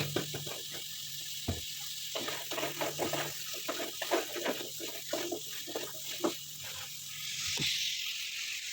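Pork pieces frying in oil in a pan: a steady sizzle, with irregular short knocks and scrapes, briefly louder near the end.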